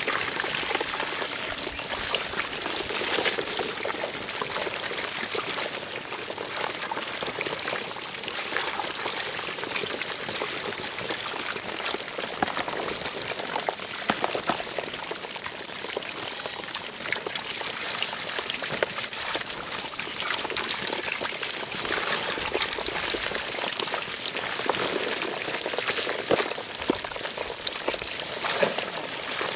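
Water splashing and trickling steadily, with a fine pattering of small wet taps throughout.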